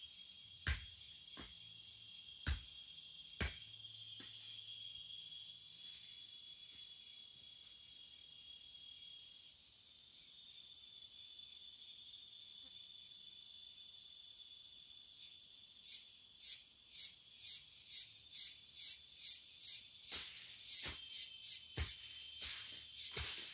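A steady, high-pitched insect drone. It is broken by scattered sharp knocks early on, and in the second half by a run of hoe strikes chopping into dry soil, about two a second at first and then more irregular.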